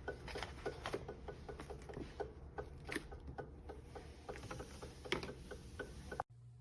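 Laminator running, its drive gears or rollers clicking evenly about four times a second over a low motor hum; the sound cuts off suddenly near the end.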